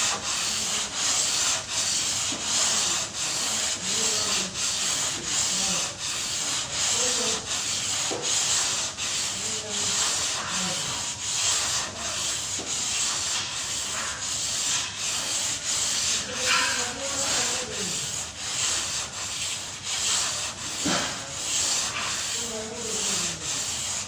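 Sandpaper on a hand sanding block rasping over body filler on a car door, in quick back-and-forth strokes about twice a second. This is hand block-sanding of the filler to take the waves out of the panel before paint.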